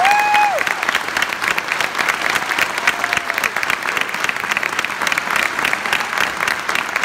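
Audience applauding a choir with dense, steady clapping. A single voice holds a short high call in the first half second.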